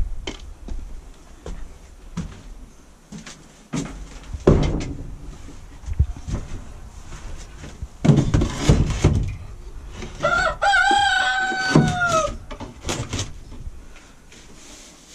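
A rooster crows once, a drawn-out call of about two seconds about ten seconds in that bends down in pitch at its end. Before it come several knocks and scrapes as wooden nest boxes are handled.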